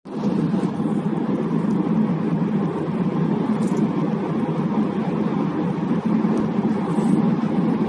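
Steady road and tyre noise of a car driving at speed through a road tunnel, heard from inside the car.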